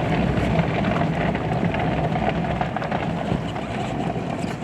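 A truck driving on a snow-covered trail: a steady engine hum with tyre noise, the hum easing off near the end.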